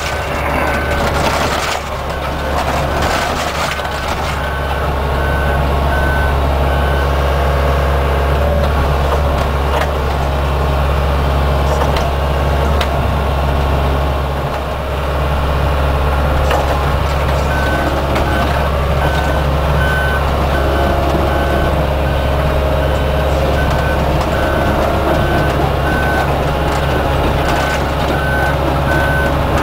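Excavator engine running steadily under work, with its travel/backup alarm beeping repeatedly for the first several seconds and again through the second half. A burst of clatter comes in the first few seconds.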